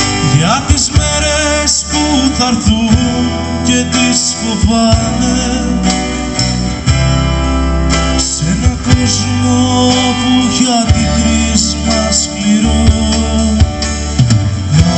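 Live Greek éntekhno-rock band playing. A man sings over a strummed acoustic-electric guitar, with bass and drums playing along.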